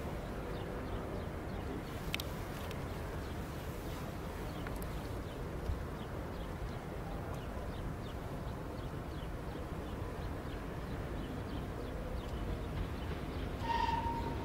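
Steady outdoor background noise by railway tracks, with faint scattered chirps and one short high-pitched tone near the end.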